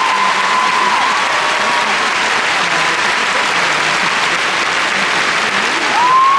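Large arena crowd applauding steadily after a figure skating performance. A single high call from the crowd is held over the applause through the first couple of seconds, and more high calls rise in near the end.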